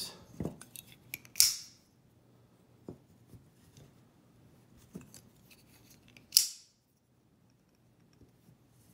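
Folding knives being handled, set down and slid on a paper towel over a table: a few light taps and clicks, and two short rustling swishes, about a second and a half in and about six seconds in.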